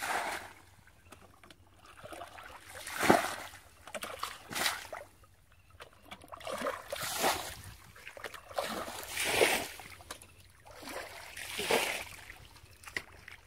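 Metal bucket scooped through shallow muddy water and emptied again and again, a series of separate splashes a second or two apart: a paddy pool being bailed out by hand.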